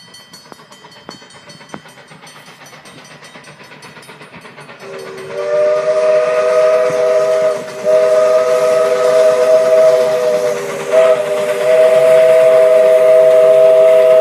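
Steam locomotive whistle sounding a three-note chord in long blasts, starting about five seconds in after a quieter stretch of train noise, with a brief break before the last long blast.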